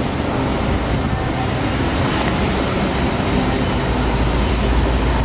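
Steady road traffic noise, an even wash of sound heaviest in the low rumble, with no music or speech over it.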